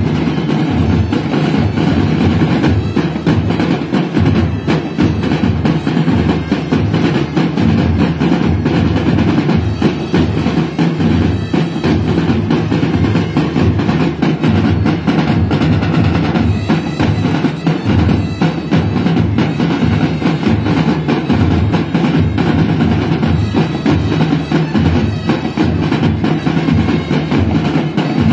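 A marching drumline playing a fast, continuous cadence together, loud and steady. Dense drum strokes are layered over a regular low beat.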